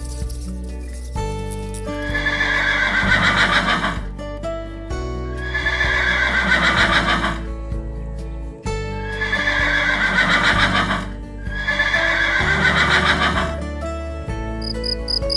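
A horse whinnying four times, each a falling call of a second and a half to two seconds, over background music with steady low notes.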